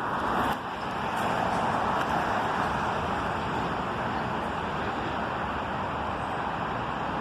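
Steady road traffic noise: a continuous rush of passing cars.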